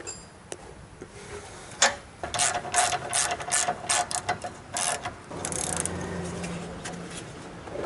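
Socket ratchet clicking through a series of strokes as a nut on the sway bar link is run down, followed near the end by a brief faster rasping stretch.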